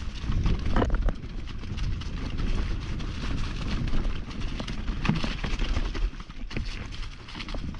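Mountain bike descending a rough dirt trail: tyres running over dirt and rocks and the bike rattling, with many irregular knocks over a low rumble.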